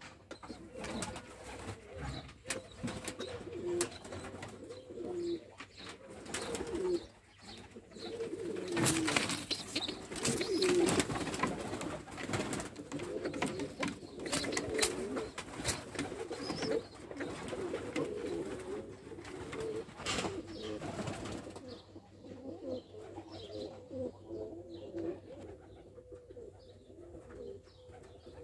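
Domestic pigeons of the Ödemiş dolapçı breed cooing in a small loft, several low overlapping coos throughout. A run of sharp clicks and knocks comes in the middle.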